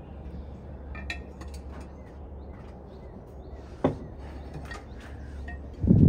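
Light clinks and knocks of a ceramic coffee canister, its lid and a wooden scoop being handled while coffee is scooped out, with a sharper knock about four seconds in and a louder low thump near the end, over a steady low hum.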